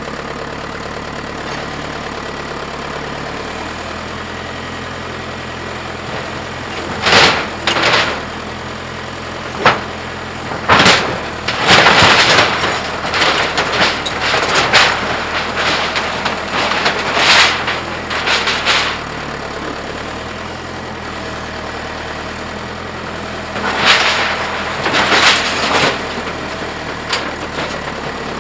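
John Deere 410 backhoe engine running steadily, with bursts of loud crashing and cracking as the machine tears into a wooden building: a run of crashes in the middle and a couple more near the end.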